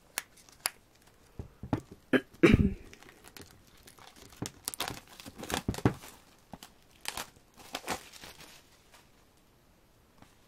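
Clear plastic sleeve and printed cards from album packaging being handled: crinkling and rustling with scattered light taps, loudest about two and a half seconds in, fading out over the last couple of seconds.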